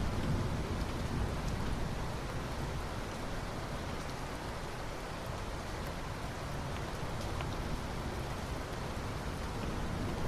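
Steady rain falling, with occasional sharp drop ticks over a low, even rumble.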